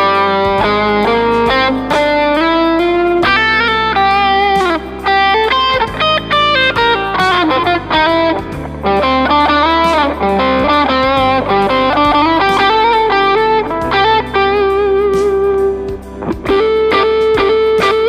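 PRS Singlecut Artist Package electric guitar playing a melodic lead with quick note runs, string bends and slides. It is played over a backing track with a sustained bass line and a steady beat.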